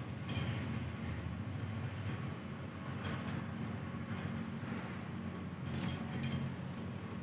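Bangles clinking on a woman's wrists in several short jingling bursts as her hands move, over a steady low hum.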